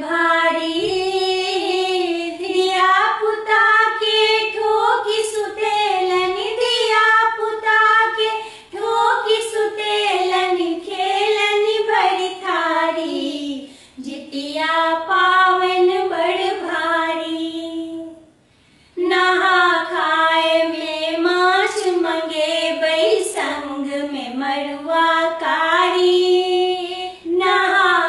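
A Maithili Jitiya festival folk song sung unaccompanied by a single high voice, in long held, wavering phrases. The singing breaks off for about a second a little past two-thirds of the way through, then goes on.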